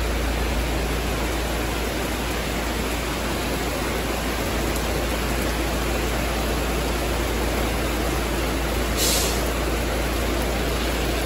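Heavy rain falling, a steady, even hiss, with a brief sharper hiss about nine seconds in.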